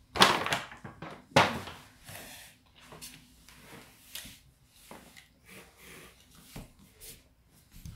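Paper gift bag being handled and set down on the floor: two loud, short crinkles in the first second and a half, then softer paper rustles and light taps.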